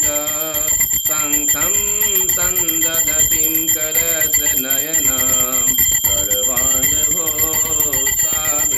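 A voice singing a Hindu devotional hymn (stuti) to a wavering melody, with a brass puja hand bell ringing steadily throughout, as is done during aarti.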